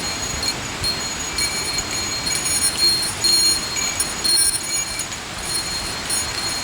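Small metal bell, such as a hiker's bear bell, jingling irregularly in short rings, over the steady rush of a mountain stream.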